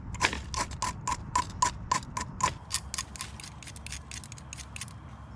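Metal striker scraping a magnesium fire-starter rod in quick repeated strokes, about three to four a second, shaving magnesium onto kindling. The strokes grow lighter and die away about three and a half seconds in.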